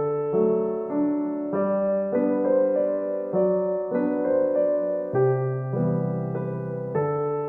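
Background piano music: gentle chords and notes played at an even pace.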